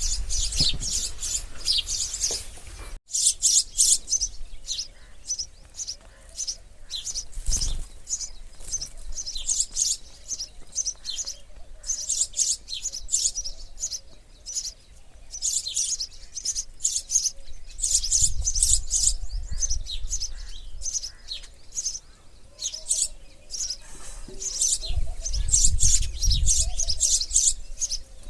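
Sparrows chirping continuously: many short, high chirps in quick, overlapping runs. There is a brief break about three seconds in, and a few low rumbles later on.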